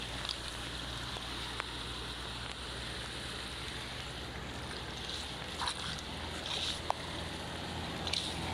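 Steady rush of floodwater, with a few faint clicks and knocks scattered through it.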